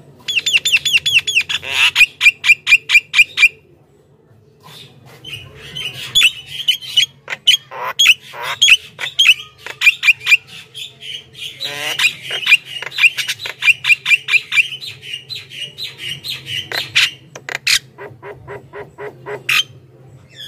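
Javan myna in full song: fast runs of repeated sharp notes, sliding whistles and harsh chatter, with a brief pause about four seconds in.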